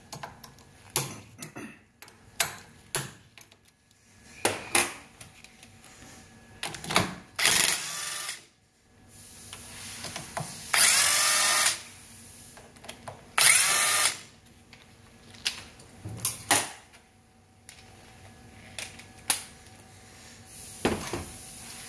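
Cordless drill-driver spinning in short bursts of a second or less, three main ones, with its pitch changing as it runs. It is backing out the fasteners that hold the electric motor of a motorcycle shock preload adjuster to its pump reservoir. Between the bursts come clicks and knocks of metal tools and parts.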